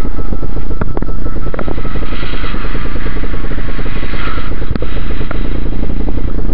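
Airflow buffeting the camera microphone of a paraglider in flight: a loud, steady rumble with a fast flutter, and a few light clicks.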